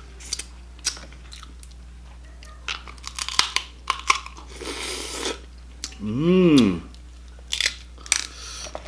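Close-up eating sounds of a man chewing crab meat, with small sharp clicks and crunches from the crab shell and a wet slurp about halfway through. A hummed "mmm" rises and falls about two-thirds of the way in.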